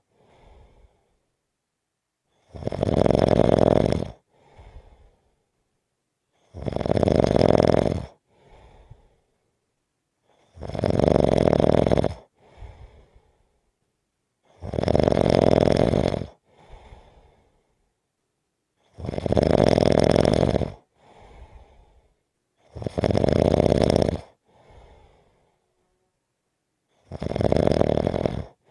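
Slow, regular snoring: seven loud, rasping snores about four seconds apart, each lasting about a second and a half and followed by a short, much fainter breath.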